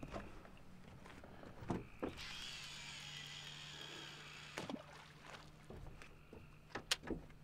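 A baited rod is cast: the fishing reel's spool whirs as line pays off for about two seconds, followed by a few sharp clicks at the reel. A steady low hum runs underneath.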